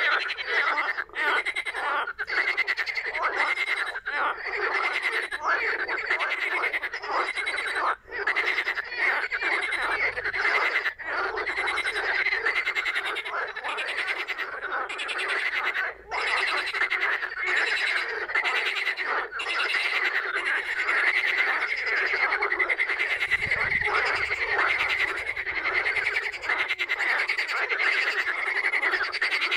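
A chorus of many frogs croaking at once, dense and unbroken, with overlapping rapid pulsing calls.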